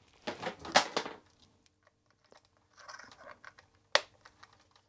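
Handling noise from a handheld digital multimeter and its test leads: crackling rustles and clicks as the leads' plugs are worked into the meter's jacks, with one sharp click about four seconds in.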